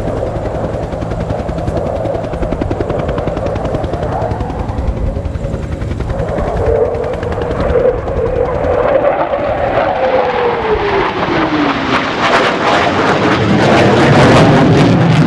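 F-15 Eagle's twin jet engines roaring loudly in a demonstration flypast. Its whine drops in pitch as the jet passes, and near the end the roar grows louder with a crackling edge.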